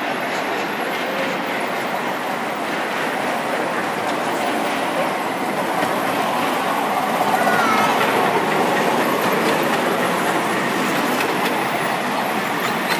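Ride-on miniature train rolling on its track with a clattering of wheels on rail joints, growing louder about halfway through as it passes close by.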